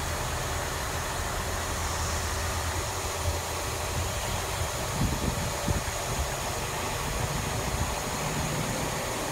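Steady low engine hum and rumble of a passenger train moving off, heard from a carriage window, with Class 68 diesel-electric locomotive 68015 propelling it. A couple of dull knocks come about five and six seconds in.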